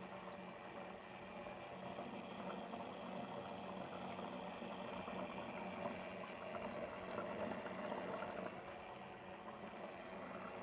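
Small submersible pump running in the plastic-bottle reservoir of a DIY water cooling loop, water bubbling and trickling as it circulates through the tubing, over a steady low hum.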